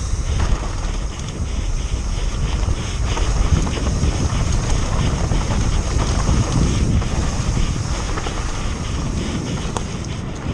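Wind buffeting the camera's microphone as a mountain bike descends fast on a dirt trail, over a steady low rumble of tyres on the ground. Short rattling clicks from the bike run through it.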